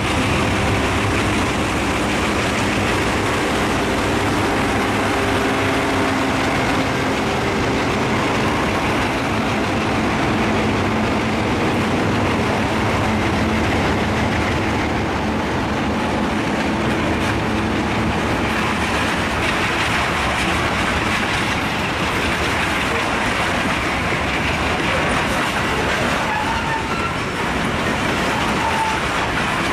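A freight train rolling by, its wheels clattering on the rails in a steady din, with a diesel engine's drone audible in the first several seconds and then fading.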